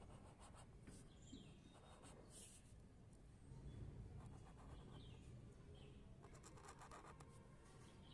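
Faint scratching of a black pen drawing straight lines on paper, in a few short strokes.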